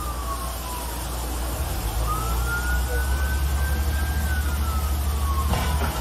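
Emergency vehicle siren wailing, its pitch slowly sliding down, up and down again, over a steady low rumble.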